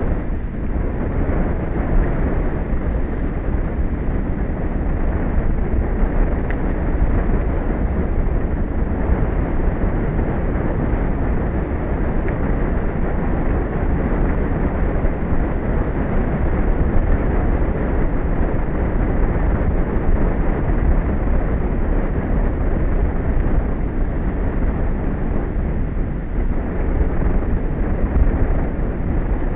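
Steady wind blowing over the microphone, a constant low noise without breaks or changes.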